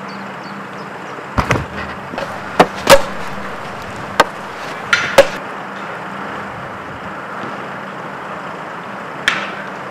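Sharp clacks of field hockey sticks hitting a hard hockey ball: about eight knocks, bunched in the first half with one more near the end.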